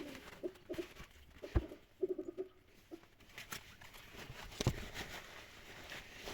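Greasy driveshaft (CV joint) parts being cleaned by hand: scattered light knocks and clicks of metal parts, with short squeaks of rubbing in the first couple of seconds.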